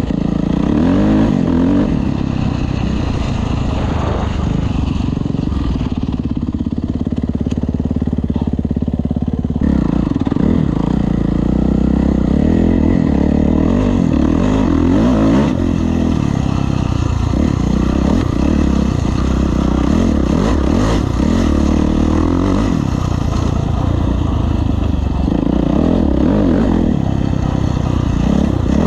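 Kawasaki KX450F motocross bike's 450 cc single-cylinder four-stroke engine being ridden, its note rising and falling with the throttle. It holds steady for about five seconds a few seconds in, then varies again.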